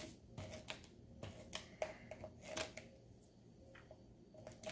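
Tape runner drawn along a paper strip, giving faint, irregular clicks with some paper rustle.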